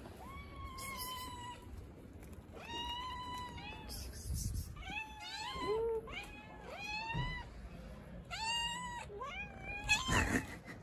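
Hungry stray cats meowing again and again: about ten high, drawn-out meows, a few bending upward in pitch and one lower in tone. A brief loud noise sounds near the end.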